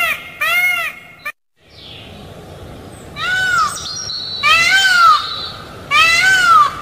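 Indian peafowl (peacock) calling loudly: one call about half a second in, then after a short break three more, each about half a second long and rising then falling in pitch.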